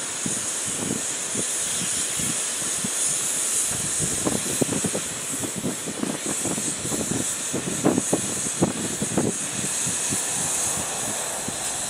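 Steam hissing steadily from the standing SMC1 'Coffee Pot' steam motor coach, with irregular low thumps throughout.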